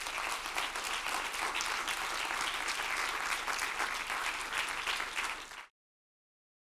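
Audience applauding: dense, steady clapping that cuts off abruptly near the end.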